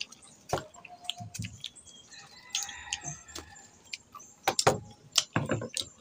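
A rooster crowing once in the middle, with a few sharp clicks and taps around it.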